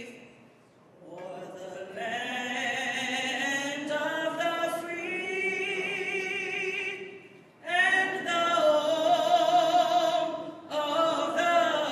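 A man singing through a hall's microphones, holding long notes with vibrato, with short breaks between phrases near the start and a little past the middle.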